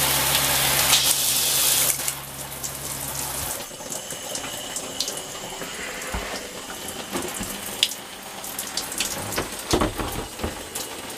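Water spraying from an Oxygenics Fury handheld RV shower head, dropping to a much quieter flow about two seconds in. A low steady hum stops about three and a half seconds in, and scattered light knocks and taps of the plastic handle and hose follow.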